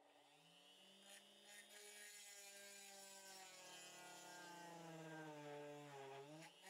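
Drill press motor running faintly with a steady hum, rising in pitch at the start and briefly sagging near the end as the bit bears down, widening a hole in a fibreglass printed circuit board.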